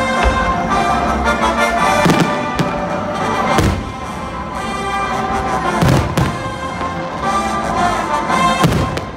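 Aerial fireworks shells bursting overhead in several sharp bangs a second or two apart, over music with held tones.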